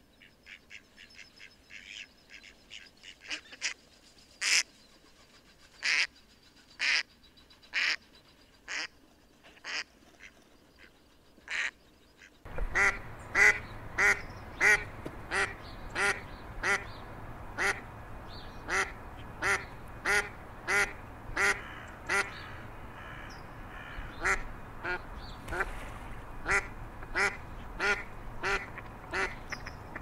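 Mallard quacking in a series of short calls, about one a second. About twelve seconds in, a steady background noise comes in suddenly and the quacks come faster, about two a second.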